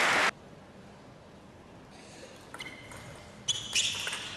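Applause cut off abruptly just after the start, then a quiet hall before a table tennis rally begins. The ball clicks sharply off bats and table, with short high squeaks, and the hits come quicker and louder near the end.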